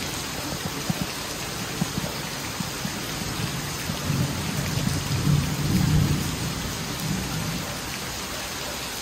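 Heavy rain pouring steadily onto wet paving and standing water. A low rolling rumble of thunder swells about four seconds in and fades by about seven seconds.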